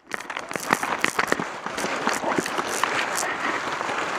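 Dry leaf litter crunching and rustling, with scattered irregular crackles, as a player scrambles low across the forest floor.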